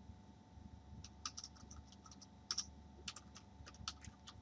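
Computer keyboard being typed on: faint, irregular key clicks, a dozen or so.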